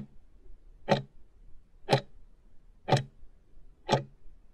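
Clock-tick countdown sound effect: five sharp ticks, one a second, marking the last seconds of a quiz timer running down to zero.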